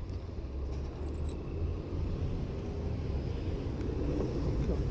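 Low, steady rumble of road traffic, growing slightly louder toward the end.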